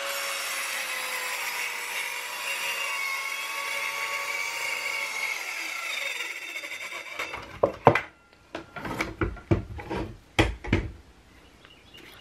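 TackLife 4-inch corded mini circular saw running through a board, a steady high whine whose pitch sags a little as the blade takes the cut. It stops about seven seconds in, followed by a string of sharp wooden knocks and clatters.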